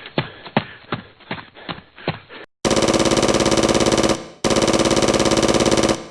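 Rhythmic knocks at about two or three a second, then two loud bursts of rapid automatic-gunfire sound effect, each about a second and a half long with a short break between them.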